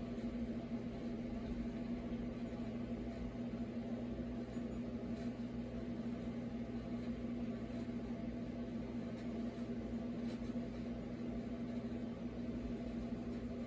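Steady low machine hum with a few faint ticks.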